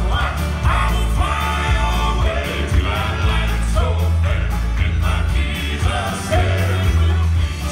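Southern gospel male quartet singing in harmony over keyboard accompaniment, with a deep bass line sustained underneath.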